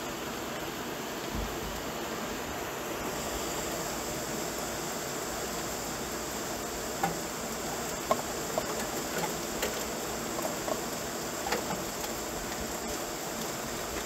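Heavy rain pouring down, a steady, even hiss. From about halfway through, scattered sharp taps of drops stand out above it.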